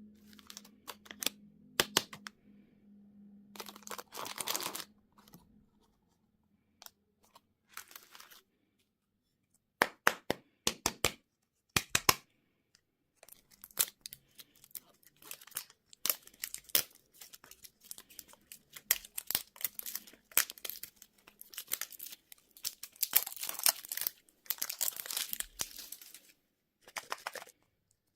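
Candy wrappers being torn open and crinkled by hand: sharp crackles and short rustling bursts, with a pause of a few seconds partway through.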